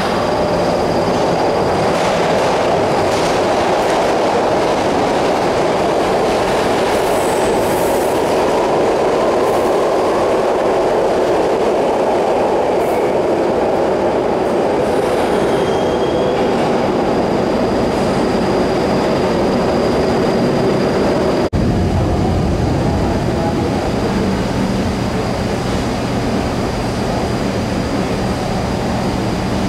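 Original-build PATCO rapid-transit train pulling out of an underground station: a steady, loud rumble of wheels on rail with a faint high whine. After a sudden cut near the end, a lower steady rumble fills the station.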